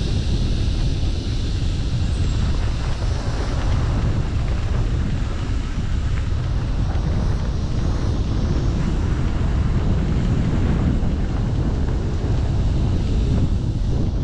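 Steady wind buffeting on a helmet-mounted camera's microphone as a mountain bike descends a dirt trail at speed, with some rattle of the bike over the rough ground.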